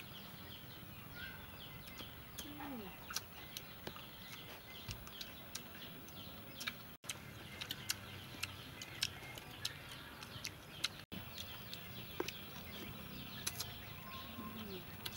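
Birds chirping and chickens calling now and then, with frequent small clicks from chopsticks and eating.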